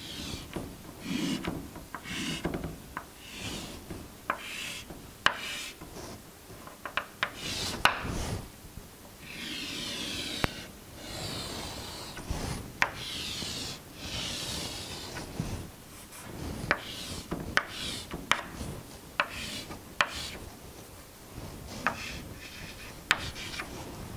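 Chalk drawing lines on a chalkboard: a string of sharp taps and short strokes, with a few longer scraping strokes near the middle.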